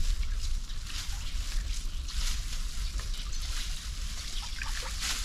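River water sloshing and splashing as a submerged turtle trap is hauled in on its line, with small irregular splashes and drips over a steady low rumble.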